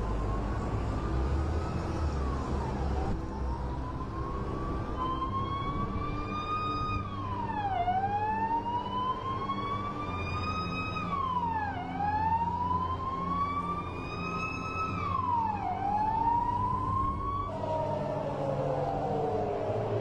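A wailing siren, rising slowly and dropping quickly in pitch about every four seconds. Near the end it gives way to several overlapping falling tones.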